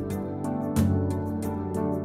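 Background music: a gentle instrumental track with plucked notes over a bass line.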